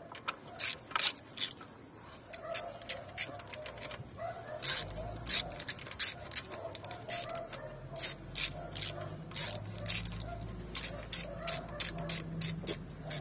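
Ratchet wrench on a spark-plug socket and long extension clicking in short irregular runs as it is worked back and forth in a plug well. A low steady hum joins about five seconds in.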